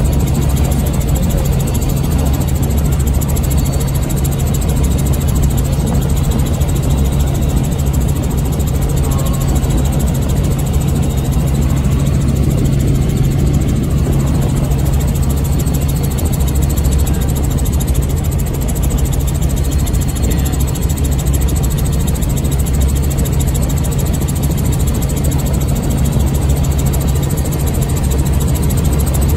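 Helicopter in flight: steady, unbroken drone of the engine and rotor.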